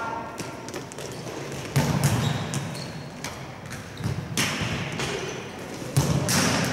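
Futsal balls being kicked and bouncing on a hard indoor court, sharp thuds that echo around a large hall, the loudest about two seconds in, again past four seconds and near the end, with smaller knocks between.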